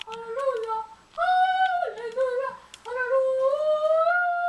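A high-pitched voice singing a wordless tune in three phrases, the notes sliding and wavering; the last phrase climbs and ends on one long held note.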